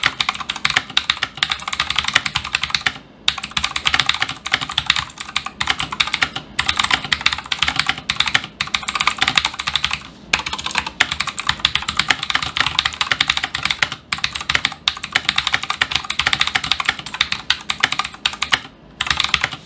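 Typing on a Redragon Mitra K551 mechanical keyboard fitted with its original Outemu Blue clicky switches: a dense, fast stream of sharp key clicks, broken by a few brief pauses.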